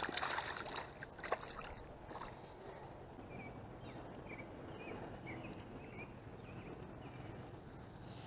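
A small largemouth bass splashing into shallow pond water as it is released, a short splash right at the start. Then quiet outdoor background with a string of faint short chirps in the middle.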